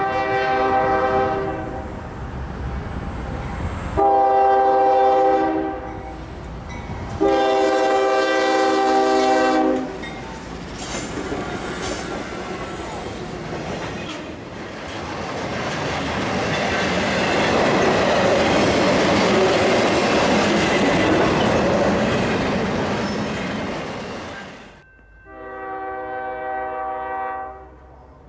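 Freight locomotive air horn sounding three long blasts, then a train passing close by with a steady rush of wheel and rail noise and clatter, and one more long horn blast near the end.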